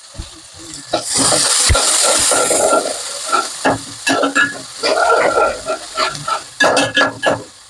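Tempering of mustard seeds, fenugreek, cumin and curry leaves sizzling in hot oil in a pan. A loud sizzle swells about a second in, followed by a metal spoon stirring and scraping against the pan in quick strokes.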